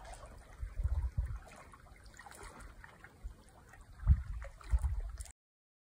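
Wind buffeting the microphone in gusts, about a second in and again near the end, over small waves lapping against a rocky lakeshore. The sound cuts off suddenly just before the end.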